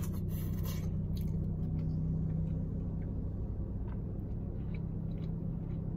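Steady low engine hum heard from inside a car, with a brief rustle in the first second.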